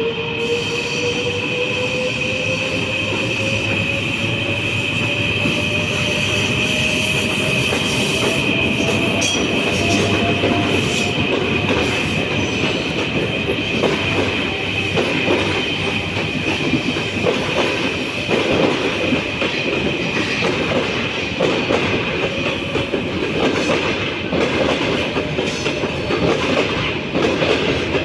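EP1M electric locomotive pulling a passenger train away and accelerating hard: an electric whine climbs steadily in pitch over the first ten seconds or so, over a steady high-pitched squeal. From about halfway through, the clatter of the carriage wheels over rail joints and points grows as the train picks up speed past.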